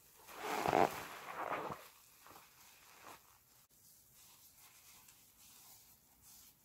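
Sudsy sponge squeezed in gloved hands: a wet squelch of foam and water lasting about a second and a half, followed by a few faint wet squishes and a single small click.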